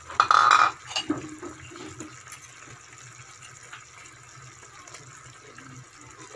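A metal utensil clattering and scraping in a wok of chicken adobo and potatoes, loudest in a short burst near the start, then a low steady simmer of the sauce with small scrapes.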